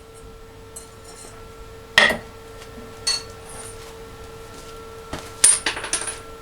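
Metal tools and workpieces knocking and clinking three times, the last with a brief high metallic ring, over a steady workshop hum.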